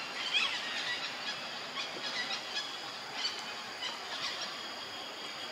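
Outdoor wetland ambience: a steady high-pitched insect drone with scattered short, squeaky chirping calls, most of them in the first second.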